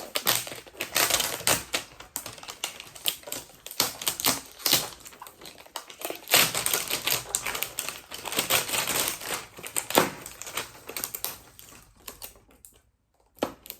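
Plastic wrapping being pulled and crinkled off a toy box: a dense run of crackles and rustles that thins out near the end.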